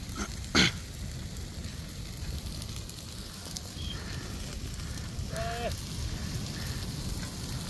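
Dry brush burning in a wildfire: a steady crackling of flames, with one loud sharp crack about half a second in.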